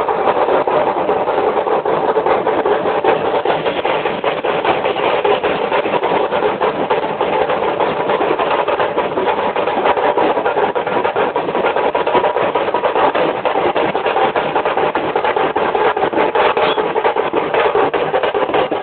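Loud, continuous din of a packed street crowd, heard as a dense, distorted wall of noise through an overloaded phone microphone, with no let-up.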